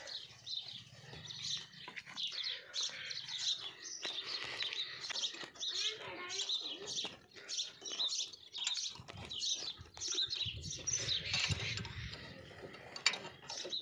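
Many small birds chirping in a dense, continuous chorus, with scattered clicks and a sharper click near the end.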